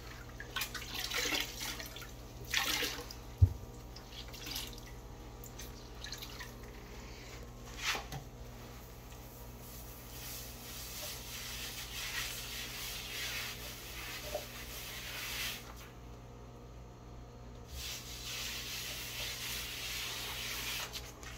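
Grout sponge rinsed and wrung out in a bucket of water, with splashing and dripping, and a single low thump about three and a half seconds in. Later the damp sponge rubs in circles over freshly grouted ceramic tile, a soft steady scrubbing that pauses briefly and resumes.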